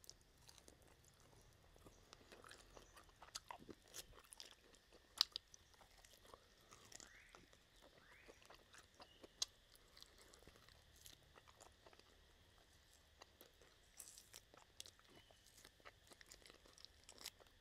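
Faint, close-miked chewing and gnawing on a pork rib bone: scattered small clicks and crunches as meat is bitten and pulled from the bone, with a few sharper crunches along the way.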